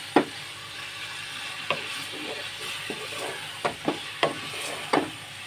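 Boiled turnip pieces and fenugreek leaves sizzling as they are sautéed in a nonstick pan. A spatula stirs through them, knocking and scraping against the pan about seven times.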